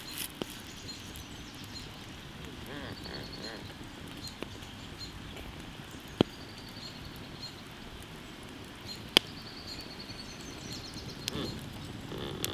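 Charcoal embers under a spit-roasting whole pig, a low steady crackle broken by a few sharp pops, the two loudest about six and nine seconds in. Birds chirp faintly in the background.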